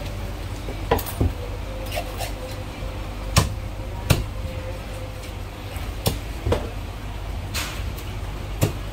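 Meat cleaver chopping through a whole poached chicken on a thick wooden chopping block: about nine sharp, irregular chops, with a short scrape near the end.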